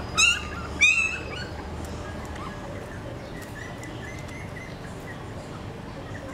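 Puppy giving two short, high-pitched yelps in the first second, then faint, repeated high squeaks.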